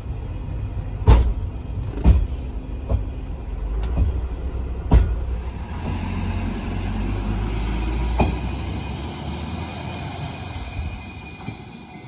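Asa Kaigan Railway DMV93 dual-mode vehicle running on rails, heard from on board as a steady low rumble. Sharp knocks come in pairs about a second apart as its wheels cross rail joints. The rumble dies down in the last few seconds.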